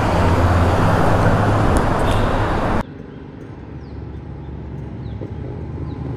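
Motorcycle engine running under a loud rush of wind noise. About three seconds in this cuts off abruptly to a much quieter, steady low engine hum.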